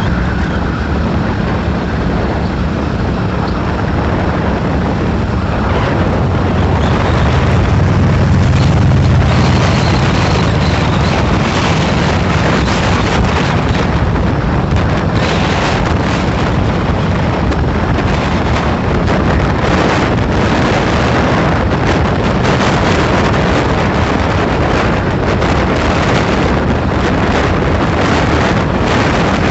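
Wind buffeting the microphone on a moving motorcycle, over the steady low hum of its engine and the road.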